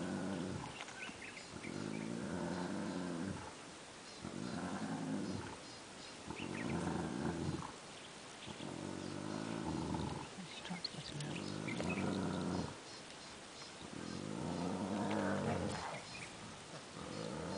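Lions growling at a buffalo kill: a run of low growls, each one to two seconds long, coming roughly every two seconds.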